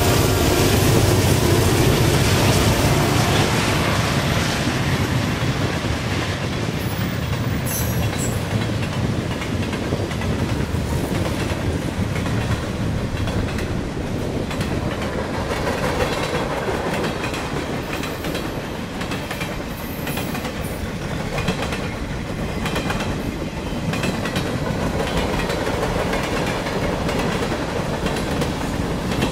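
A diesel-hauled freight train passing close by. The locomotives' low engine rumble fades in the first few seconds, and then the freight cars' wheels run past in a steady clickety-clack over the rail joints.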